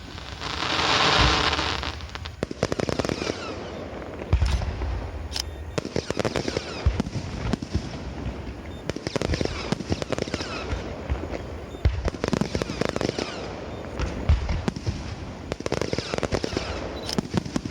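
Aerial fireworks show: dense crackling with many sharp bangs from bursting shells. A loud rushing hiss lasts about two seconds near the start.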